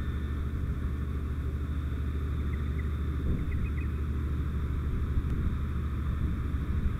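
Steady low rushing rumble of a fire hose line flowing a wide fog stream of water onto a burning propane leak, the water spray and burning gas blended into one continuous noise.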